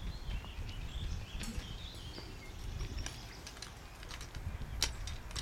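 Birds chirping over a steady low rumble, with a few sharp ticks scattered through.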